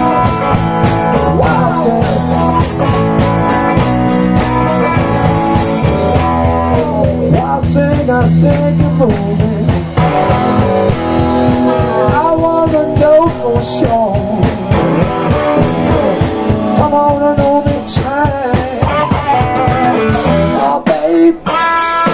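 Live electric blues-rock band playing: electric guitars and a drum kit keep a steady beat, with a melody line bending up and down over the top.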